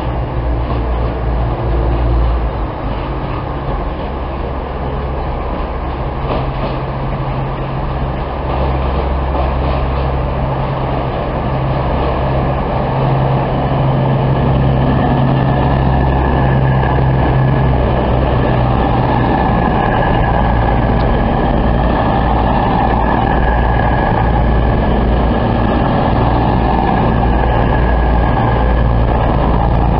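Diesel passenger train running into the platform, its underfloor engines giving a steady low hum with a high whine above. The sound gets louder about halfway through, then holds steady as the train draws level and slows.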